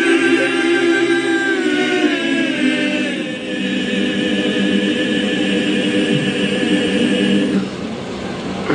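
Male choir singing a cappella in long held chords, the harmony shifting a couple of seconds in and the chord dying away near the end.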